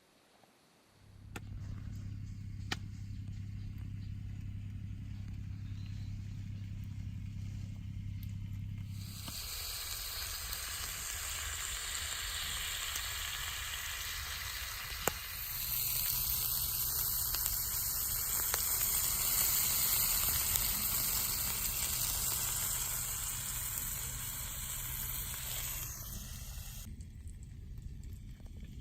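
A steady low hum, then about nine seconds in, food starts sizzling in a hot skillet. The sizzle grows louder a few seconds later and drops away near the end.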